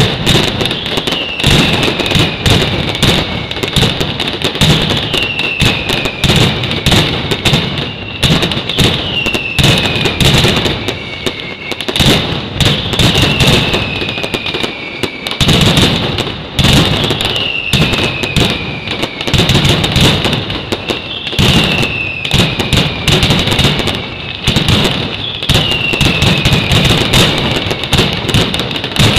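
Night mascletà fireworks: a loud, dense and unbroken barrage of firecracker bangs, with a falling whistle about every two seconds.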